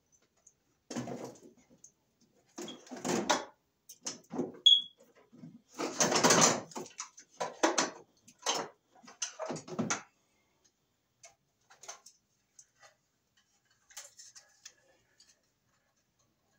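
A metal electrical box and its wiring being pulled down and handled, clattering and rattling in a run of irregular knocks through the first ten seconds, loudest about six seconds in, then only a few faint ticks.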